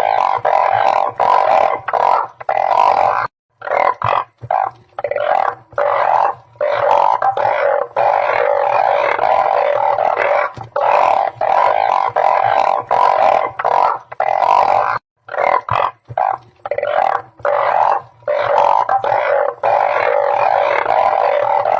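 A dense chorus of truncate-snouted burrowing frogs (Glyphoglossus molossus) calling, many loud overlapping droning calls, cutting out completely for a moment twice.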